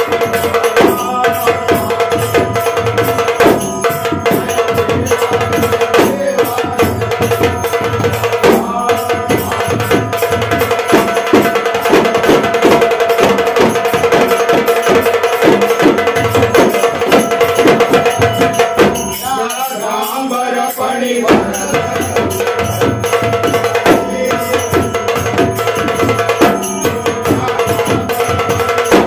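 Ghumat clay-pot drums played together in a fast steady rhythm with a shamel drum beaten with thin sticks, while a group of men sings the arati. About two-thirds of the way through, the drums stop for about two seconds while the singing carries on, then start again.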